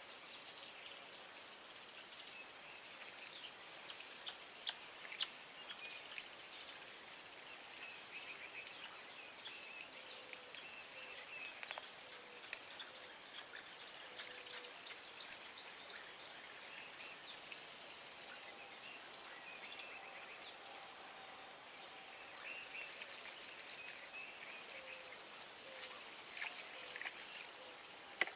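Faint rural background of birds and insects, with water trickling from a plastic bottle poured over a guinea pig carcass as its hair is cleaned off by hand, and a few small clicks.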